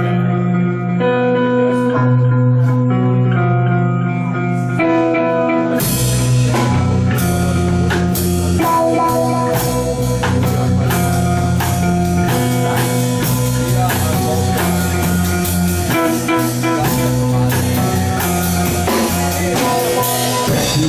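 Instrumental intro of a rock song: guitar playing held chords and notes alone, then drums and bass come in with the full band about six seconds in and play on steadily.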